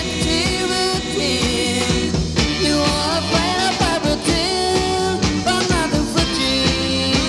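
1960s beat-band rock recording played in mono from a vinyl LP transfer: electric guitars, bass and drums keeping a steady beat.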